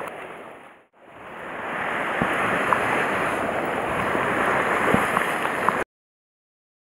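Sea surf washing against a rocky shore: a steady rush of water. It fades out about a second in, swells back, and cuts off suddenly near the end.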